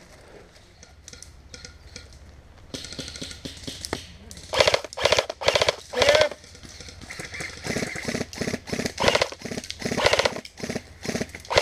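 Men's voices calling out and talking, with several loud shouted calls in the second half. It starts out quiet.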